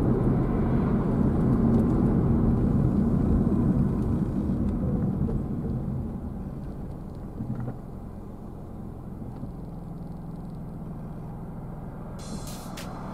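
Low road rumble of a car heard from inside the cabin, engine and tyre noise while driving. It grows quieter about six seconds in and settles to a lower steady hum.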